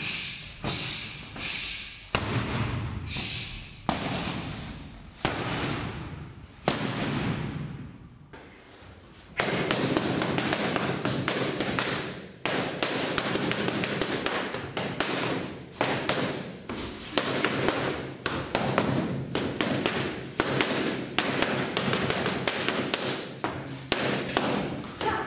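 Boxing gloves punching focus mitts with sharp slaps and thuds: single punches about a second apart at first, then from about nine seconds in a long run of rapid, louder punches.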